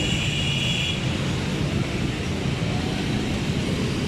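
Steady low rumble of motor vehicles and road traffic, with a high steady tone that stops about a second in.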